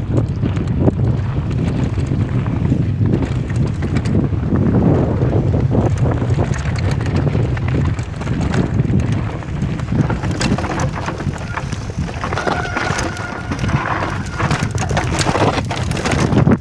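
Wind buffeting the microphone of a helmet-mounted camera on a fast mountain-bike descent of a rocky trail, under a steady low rumble with frequent clicks and rattles from the bike over loose stones. A faint high whine sounds for a few seconds in the second half.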